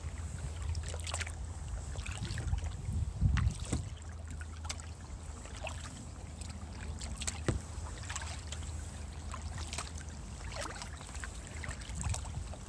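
Kayak paddle strokes in calm water: irregular small splashes and drips as the blades dip and lift, over a steady low rumble.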